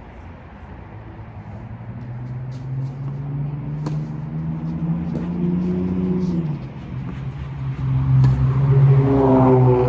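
A motor vehicle's engine passing close by, growing louder over several seconds, easing off about six and a half seconds in, then louder again near the end with its pitch rising as it accelerates.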